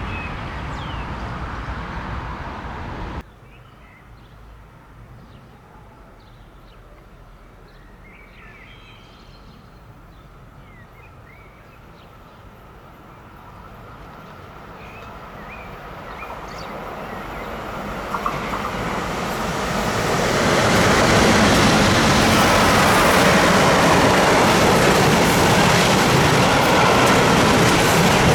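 A train running, then after an abrupt cut, birds chirping over a quiet background as an electric-hauled train approaches. Its sound grows steadily louder over several seconds until it passes close by, a loud, steady rush of wheels on rails.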